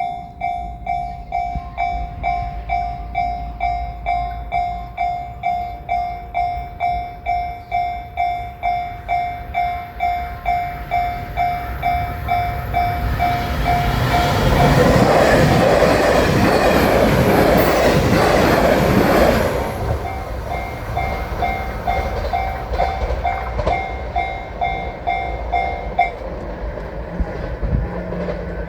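Japanese level crossing's electronic warning bell ringing steadily at about two strokes a second. Part way through, a train passes through the crossing, loud for about five seconds and drowning out the bell. The bell then rings on until it stops near the end.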